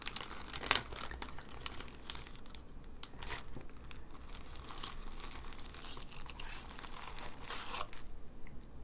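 Clear plastic bag crinkling and crackling in irregular bursts as hands open it and slide out a silicon wafer. The sharpest crackle comes under a second in, and the crinkling stops near the end.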